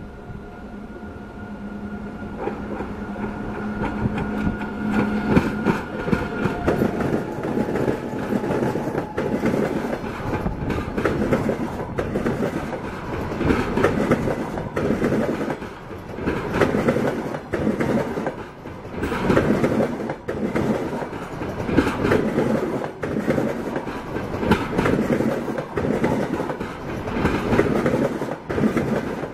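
A passenger train hauled by an EP20 electric locomotive passes close by. For the first several seconds a steady electrical hum from the locomotive is heard, growing louder. Then the coaches' wheels clatter over the rail joints, swelling in a repeating rhythm every two seconds or so.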